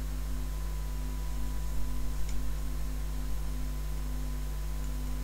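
Steady low electrical mains hum with a faint hiss, and one small tick about two seconds in.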